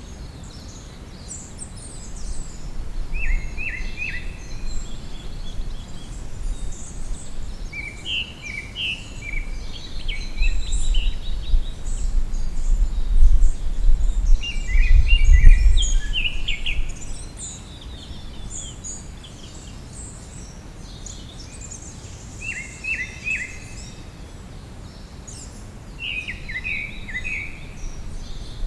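Several songbirds singing and calling, one repeating a short chirping phrase every few seconds. A low rumble builds through the first half and is loudest about halfway through, then fades.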